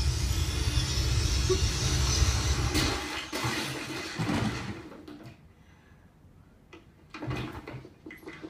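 Television soundtrack: a loud, deep, noisy rumble that dies away between about three and five seconds in, followed by a few faint short sounds near the end.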